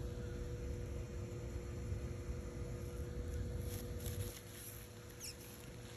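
Soft rustling and handling of cut zinnia stems and leaves in a glass jar, over a low rumble and a faint steady hum; the rumble drops away about four seconds in, and a short high chirp sounds near the end.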